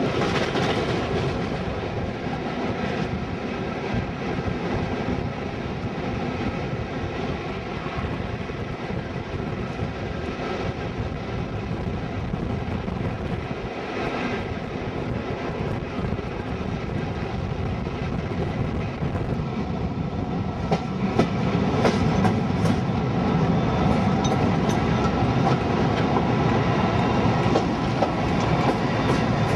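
Loco-hauled passenger train running on the track, heard from an open carriage window: a steady rumble of wheels on rail with clickety-clack over rail joints. A run of sharp clicks comes about two-thirds of the way through, and the noise grows somewhat louder towards the end.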